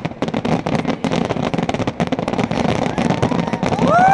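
Fireworks going off in a dense, rapid barrage of bangs, several a second. Near the end a horn starts, rising in pitch and then held.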